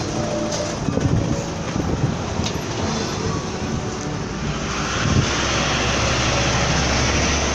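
Street traffic noise with a motor vehicle passing close, its steady low engine rumble coming in about five seconds in.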